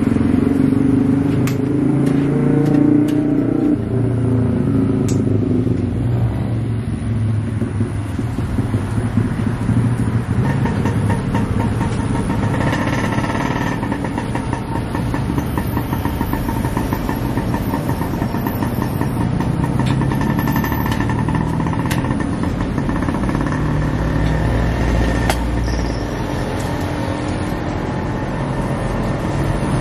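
Motor traffic running steadily, motorcycles and cars passing and changing pitch as they go by, with a few sharp clicks now and then.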